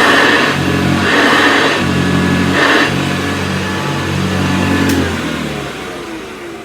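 Vintage Hoover Convertible upright vacuum cleaner running, swelling louder in three brief whooshes, then switched off about five seconds in, its motor winding down with a falling pitch.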